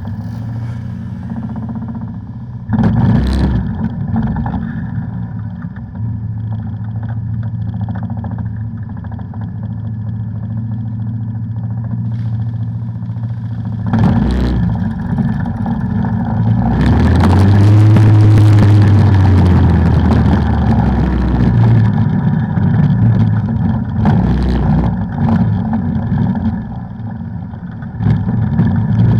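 ATV engine running as the quad rides off, with a revving rise and fall in pitch and a burst of hiss a little over halfway through.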